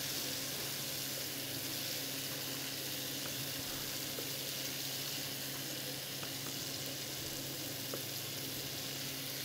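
Venison loin searing in oil in a hot pan: a steady sizzle, with a low hum underneath and a few faint knife taps on a wooden chopping board.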